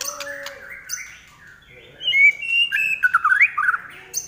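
White-rumped shama singing a varied song of whistled notes, pitch glides and quick high notes, getting much louder about halfway through.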